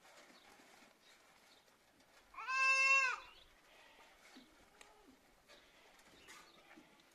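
A goat bleats once, a single high call of under a second, about two and a half seconds in.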